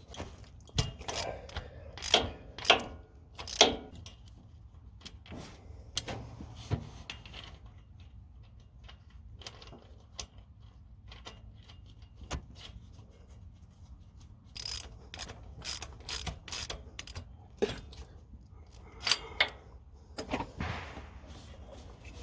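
Socket ratchet clicking in short runs while a spark plug is turned out or snugged in, with scattered metal tool clinks; near the end comes a run of about eight quick, evenly spaced ratchet clicks.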